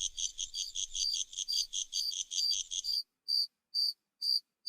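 Crickets chirping in a fast, even rhythm, two callers overlapping. About three seconds in one falls silent and the other gives four more spaced chirps before the sound cuts off abruptly.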